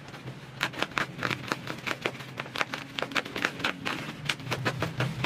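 Plastic bubble-wrap packaging being pulled and crumpled by hands, giving a run of irregular sharp crackles, several a second.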